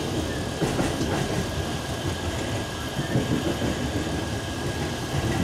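Steady rumble of an electric commuter train heard from inside the carriage as it rolls slowly over station tracks, with wheels clattering faintly on the rails.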